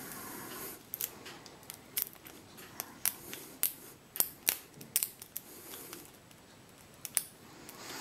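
Steel hook pick clicking and scraping against the pins inside a five-pin Master Lock Pro Series 6835 padlock held under tension, its back rocked across the pins. It makes a run of sharp, irregular metallic clicks, about two or three a second.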